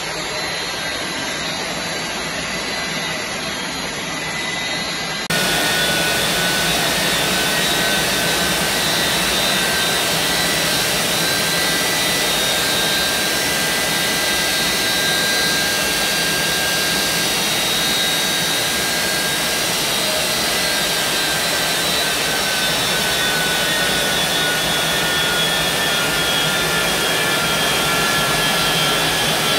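Westinghouse J34 turbojet engine running steadily: a loud rushing exhaust noise with a high turbine whine. About five seconds in, the sound jumps abruptly louder, and near the end the whine sags slightly in pitch.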